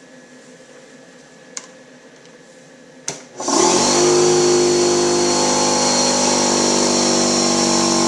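Kobalt 1.5-gallon portable air compressor with a 1.3 running-horsepower motor switched on with a click about three seconds in. Its motor spins up quickly and then runs loud and steady.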